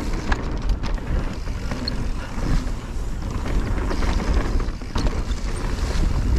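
Wind buffeting the microphone with a steady low rumble, over the rolling noise of a mountain bike on a trail, with a few sharp clicks and rattles.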